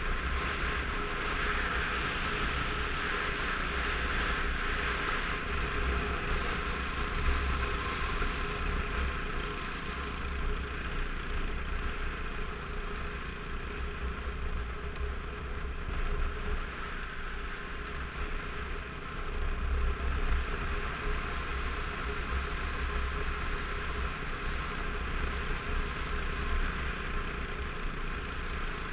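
Motorcycle riding along a gravel road at a steady pace: the engine running evenly under a heavy, fluctuating rumble of wind on the helmet-mounted microphone.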